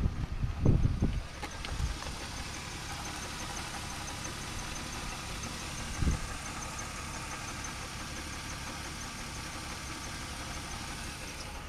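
BMW E36 328i's straight-six engine idling with a misfire, a steady low running sound with a faint regular ticking over it. A few low thumps come in the first second and one about six seconds in.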